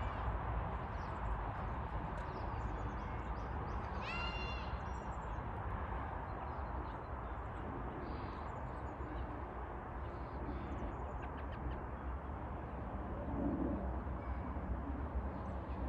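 Steady outdoor background noise with one harsh, harmonic bird call about four seconds in, and a few faint high chirps later on.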